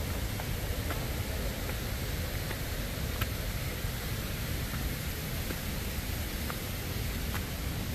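Steady, even rushing noise of a waterfall, unbroken throughout, with a few faint ticks scattered through it.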